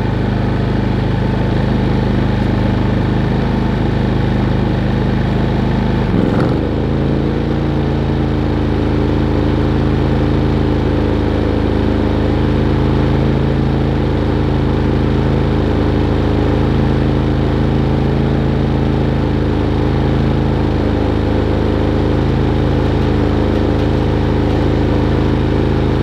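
Harbor Freight Predator 3500 inverter generator's 212cc single-cylinder engine running steadily. About six seconds in its note jumps and settles at a higher steady pitch as the generator throttles up under the load of the RV air conditioner starting.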